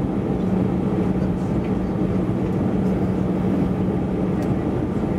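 Airbus A320-216 cabin noise on approach, heard at a window seat by the wing: a steady rush of airflow with the CFM56 turbofan's constant low hum underneath.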